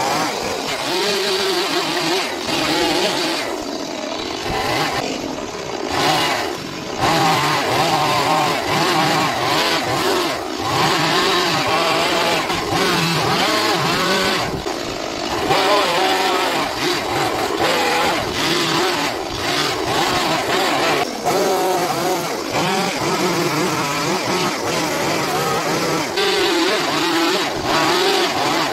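Stihl two-stroke chainsaw running under the throttle as it carves into a wooden log, its pitch rising and falling with the cuts and easing off briefly a few times.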